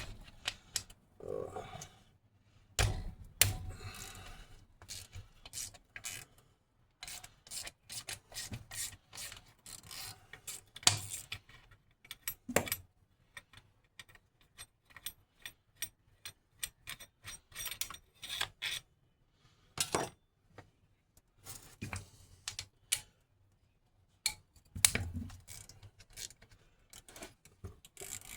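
Hand tools working on a 6.5 diesel starter motor as it is taken apart: irregular metallic clicks, clinks and knocks of a wrench and metal parts, with runs of quick clicking.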